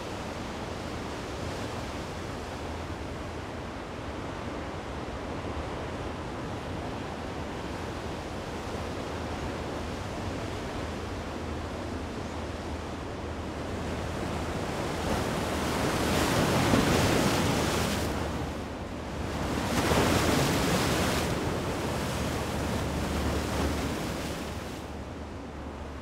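Ocean surf breaking on a rocky shore: a steady rush of water with two louder waves crashing and washing back in the middle, over a low wind rumble on the microphone.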